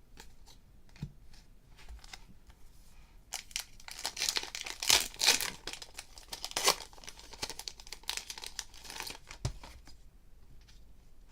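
A trading-card pack wrapper being torn open and crinkled: a few soft handling clicks, then about three seconds in a run of crackling rustles lasting some six seconds.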